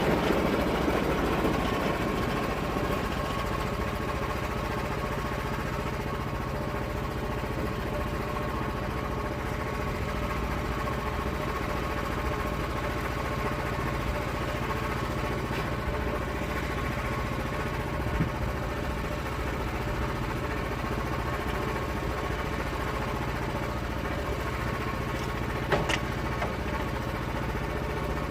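Small gasoline engine of a log mill running steadily. It is a little louder for the first couple of seconds and then holds an even drone, with a couple of faint clicks near the end.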